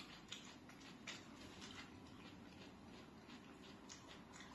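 Near silence, with a few faint, scattered clicks of chopsticks against a metal wok and a steel rice bowl during eating.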